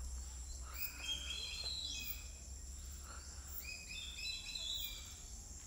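Birds chirping in quick runs of short, repeated high notes, one run about a second in and another around four seconds in, over a steady high hiss and a low wind rumble.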